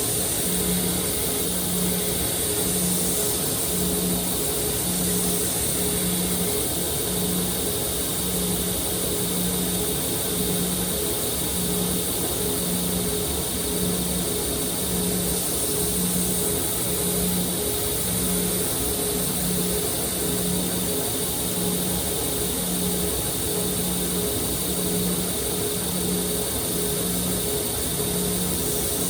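Electric grinding machine running steadily during knife regrinding, with a constant hum and a regular pulse about once a second.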